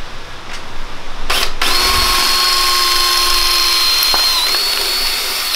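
Cordless drill pulsed briefly, then run steadily for about four seconds, turning a bolt on a motorcycle headlight bracket, and stopped abruptly.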